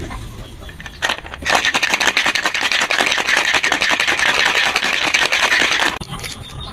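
Ice cubes rattling inside a Boston shaker, a metal tin sealed over a mixing glass, shaken for about four and a half seconds after a single knock about a second in; the shaking stops suddenly near the end. This is the wet shake with ice that chills an egg-white sour.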